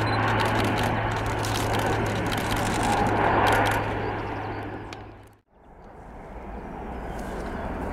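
Jet engines of a Boeing 747-400 landing: a loud rushing noise with a steady low hum, loudest about three and a half seconds in, then fading out to silence about five and a half seconds in. A fainter, even airport jet noise fades back in afterwards.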